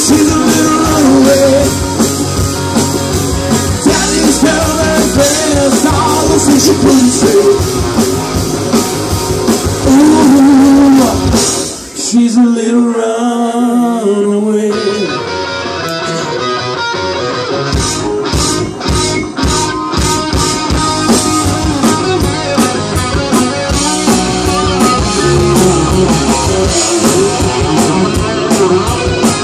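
Live rock band playing: distorted electric guitars, bass, drum kit and a male lead singer. About twelve seconds in the drums and low end drop out for several seconds, leaving guitar and voice, then the full band comes back in.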